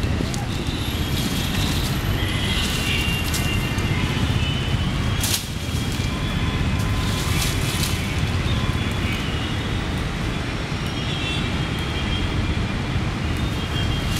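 Steady low outdoor rumble, with faint high tones and a few brief clicks or rustles, the sharpest about five seconds in.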